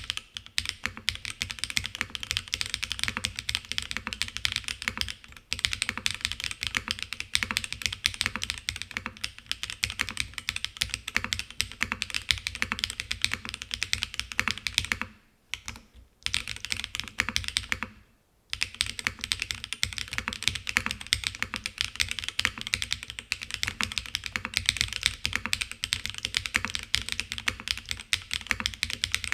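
Fast, continuous typing on a gasket-mounted mechanical keyboard with Cera R3 switches, DCS-profile keycaps, a full aluminium plate and no foam, a dense run of key clicks. It breaks off twice briefly about halfway through.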